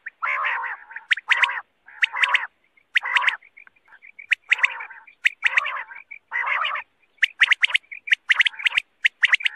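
Common quail calling over and over: short rasping notes alternating with quick runs of sharp, high clicking notes, about once a second.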